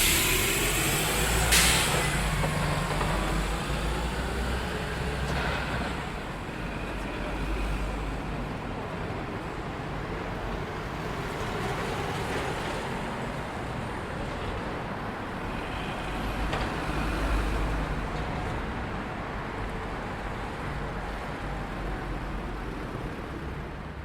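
City street traffic ambience: a steady rumble of passing road vehicles, heavy ones among them, with engine pitch gliding near the start. A short sharp hiss comes about a second and a half in, and the traffic swells again about two-thirds of the way through.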